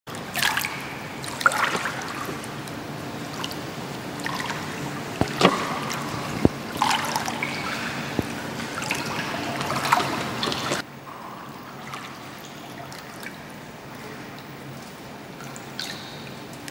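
Pool water sloshing and splashing around a person moving through it chest-deep, in irregular surges. About eleven seconds in it drops suddenly to fainter lapping.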